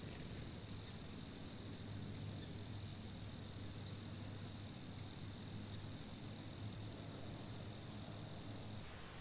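Insects trilling steadily on one high pitch, with a few short faint chirps above it; the trill cuts off abruptly shortly before the end.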